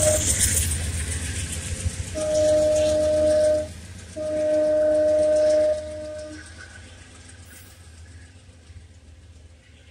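Departing CTrail passenger train rolling away with fading wheel-on-rail clatter. Its locomotive horn sounds two long blasts with a short gap between them, then the train fades into the distance.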